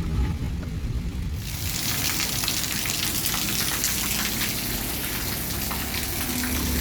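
Heavy rain falling on a surface: a dense hiss of many drops that comes in suddenly about a second and a half in, replacing a low rumble.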